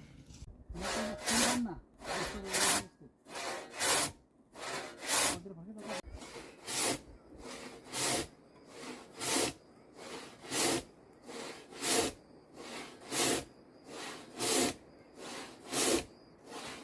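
Hand saw cutting through timber in steady back-and-forth strokes that start about half a second in. A louder cutting stroke comes about every 1.3 seconds, with a softer return stroke between.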